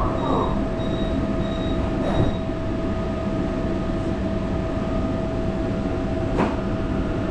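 Interior of a Taichung MRT train car about to depart: a steady hum with a constant tone, a high beep repeating for the first couple of seconds, and two sharp clunks, one about two seconds in and one near the end.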